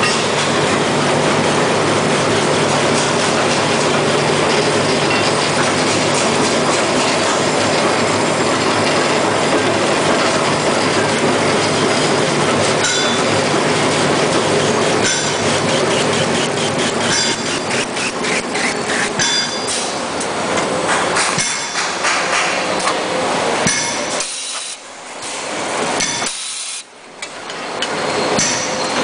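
Toilet paper and kitchen towel rewinding machine running at production speed: a loud, steady mechanical clatter with rapid clicking from its rollers and drives, dropping away briefly twice near the end.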